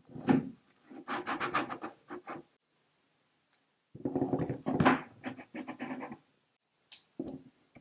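Metal dough scraper cutting down through soft bread dough and scraping on a wooden board, in four short bursts of quick scraping strokes with pauses between.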